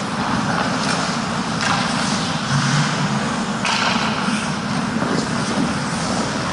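Ice hockey game noise heard from a goalie's helmet camera: skate blades scraping and carving the ice over a steady wash of rink noise, with a few louder scrapes.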